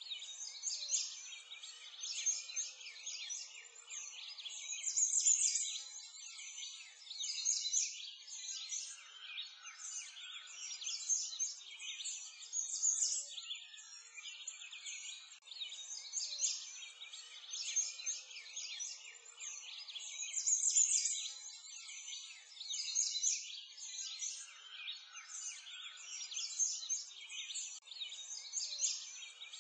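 A dense chorus of small birds chirping and twittering, the calls high and rapid and overlapping, used as a background ambience track that seems to repeat about every fifteen seconds.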